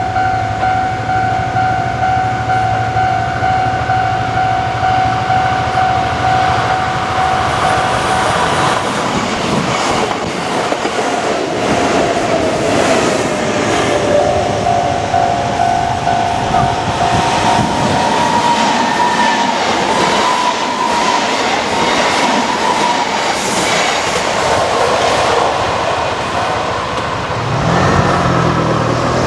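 A Japanese level crossing's warning bell rings steadily. From about nine seconds in, a Kintetsu Minami Osaka Line train runs through the crossing with its wheels clattering over the rail joints.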